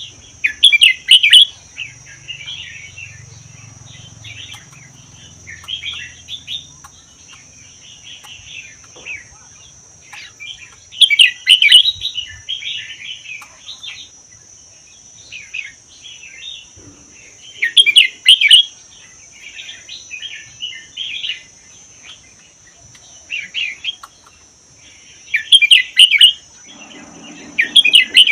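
Red-whiskered bulbul singing: four loud song phrases several seconds apart, with softer chattering notes between them.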